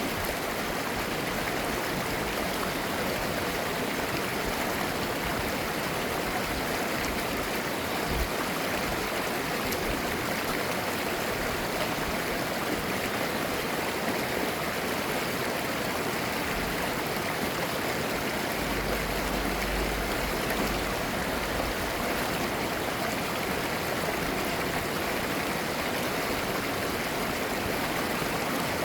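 Clear mountain-valley stream flowing and babbling steadily.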